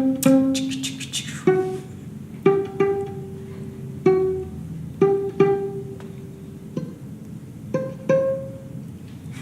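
Violin played pizzicato: single plucked notes, spaced about a second apart, each ringing briefly before dying away.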